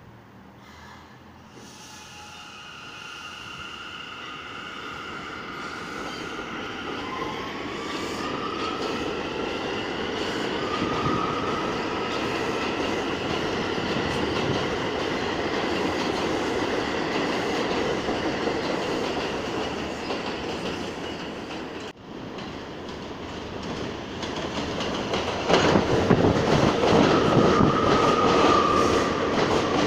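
New York City subway trains on an elevated steel structure. A train on the far track pulls away, its wheels rumbling and squealing in gliding tones as it builds up in loudness. After an abrupt break, a train runs past close alongside the platform, louder, with rapid wheel clatter and more squeal.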